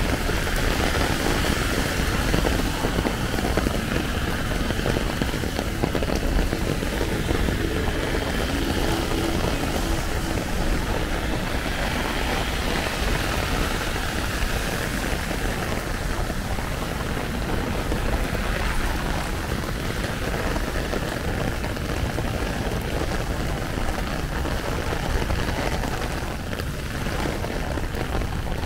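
Heavy rain falling steadily on an umbrella and the wet street, with a low, steady rumble of city traffic underneath.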